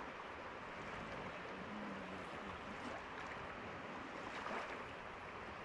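A river flowing steadily, an even rush of water with no breaks.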